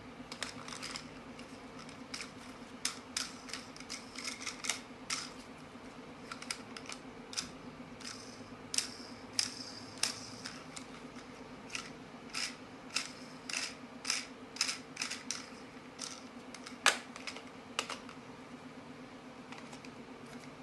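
Irregular light clicks and taps, dozens of them at uneven spacing, over a steady low hum.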